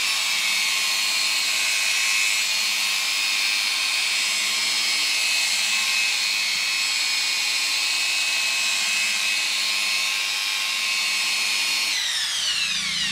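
Electric angle polisher with a foam pad running steadily with a high whine as it buffs black car paint, the pre-polishing step after 6000-grit sanding. About twelve seconds in it is switched off and winds down in a falling whine.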